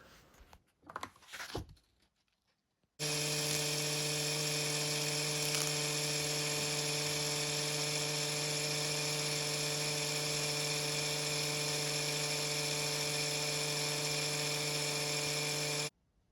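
Electric drill running steadily at one speed, spinning a clock wheel held in its chuck while the wheel's pivots are polished. It starts abruptly about three seconds in and cuts off suddenly near the end.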